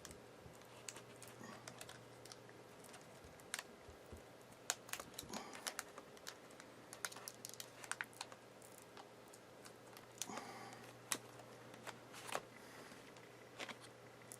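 Faint, irregular small clicks and taps of hands handling a laptop LCD panel, seating the display cable's connector and pressing its tape down, over a low steady hum.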